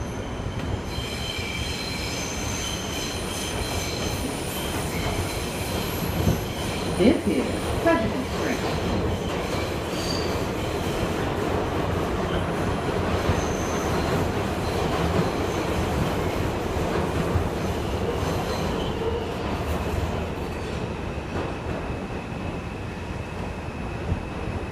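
R142 subway car running between stations, heard from inside the car: a steady rumble of wheels on rail. In the first few seconds a high whine of several tones rides over the rumble, and a few sharp knocks come about seven to eight seconds in.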